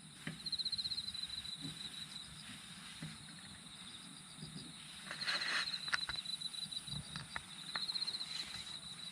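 Insect trilling in short stretches of fast pulsed chirps, three times, over a steady high background, with a few faint clicks.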